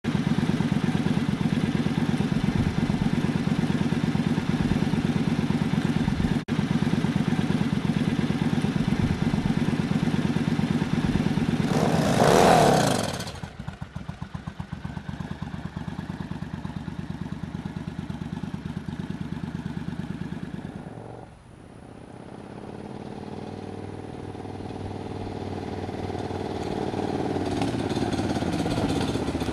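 Cruiser motorcycle engine running steadily at idle, with a short louder burst about twelve seconds in. Later the motorcycle rides closer, its engine growing steadily louder.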